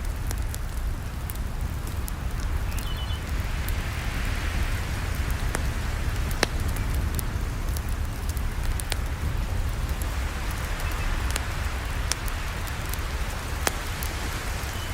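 Campfire burning: a steady low rumble and hiss with scattered sharp crackles and pops.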